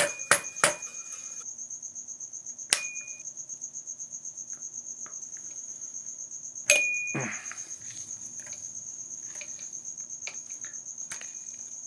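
Sharp metal taps of a steel pin punch on a small pin in a milling machine feed knob: three quick taps right at the start, one at about three seconds, and a harder one with a short ring at about seven seconds. Under them runs a steady high-pitched pulsing cricket trill.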